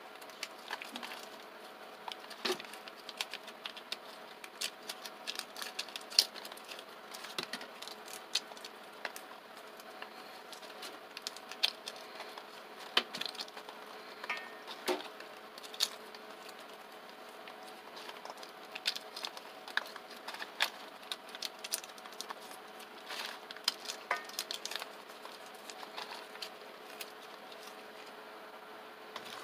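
Fresh green pea pods being split open by hand, giving short irregular crisp clicks and the patter of peas dropping into a stainless steel bowl, over a faint steady hum.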